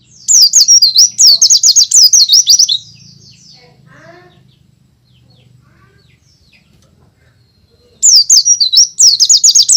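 White-eye (pleci) singing loudly: fast runs of high, rapidly repeated swooping notes in two bursts of about two and a half and two seconds, about five seconds apart. In the gap, fainter short chirps are heard.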